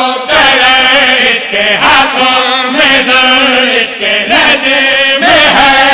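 Men's voices chanting a devotional Urdu verse together into a microphone in a drawn-out, melodic recitation, with short breaths between phrases.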